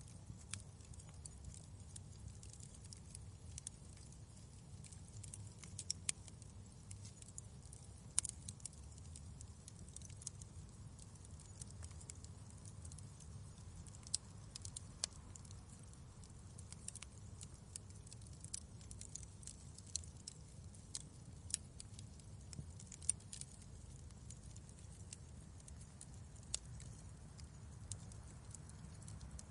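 Wood fire burning in a fireplace: a low steady rumble of the flames with irregular sharp crackles and pops from the burning logs.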